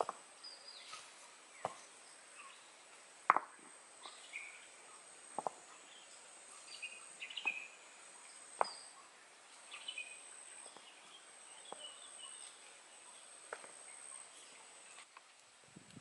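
Rocks clacking against one another as they are set down by hand into a ring, about ten sharp knocks spaced a second or two apart, the loudest about three seconds in. Birds chirp in the background over a steady high insect drone.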